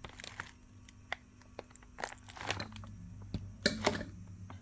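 Hands turning over a replacement front lower control arm and its packaging: scattered light clicks and short rustles, a little louder about three and a half seconds in, over a faint steady hum.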